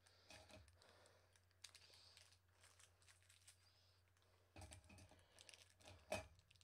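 Faint crinkling of candy wrappers and packaging being handled, with small clicks and taps; the handling grows a little louder past the middle, with one sharper tap near the end.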